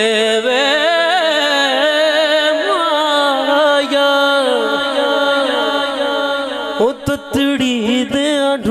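A man sings a Punjabi Sufi kalam into a microphone in long, wavering, ornamented melismatic phrases over a steady held drone. The phrase breaks up briefly with short gliding notes near the end.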